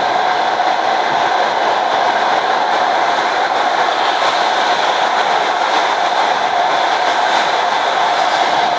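ED4M electric commuter train in motion, heard from on board: a steady running noise of wheels on rail and traction equipment, with a constant hum-like band in the middle.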